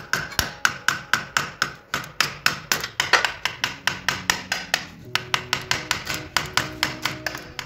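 Rapid, even hammer blows, about four a second, driving a screwdriver through the sheet-steel canister of a motorcycle's spin-on oil filter so it can be levered off without a filter wrench.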